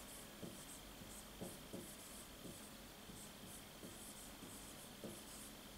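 Whiteboard marker writing on a whiteboard: a faint run of short, scratchy strokes with light taps of the tip against the board.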